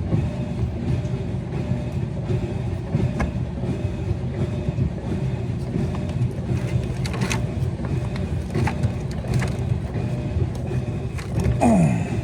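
Steady low rumble with a faint hum, with a few light clicks and knocks spread through it, and a short whine that slides in pitch near the end.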